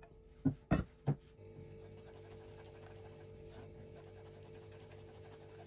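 Three sharp knocks of metal cookware in the first second or so, then a silicone whisk stirring a thin cream mixture in a nonstick saucepan, a soft rhythmic swishing over a steady low hum that starts about a second and a half in.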